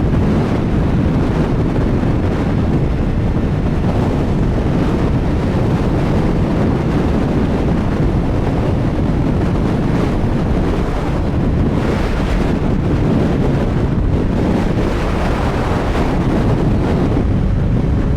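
Heavy wind buffeting on the microphone of a CFMoto 675SR-R sport bike cruising at highway speed, with its 675 cc inline-triple engine running steadily beneath.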